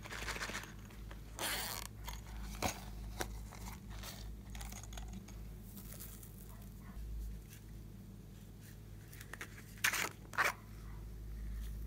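Hands handling slime-making items and toppings: short scraping, rustling handling noises and a few sharp clicks, with two louder bursts about ten seconds in.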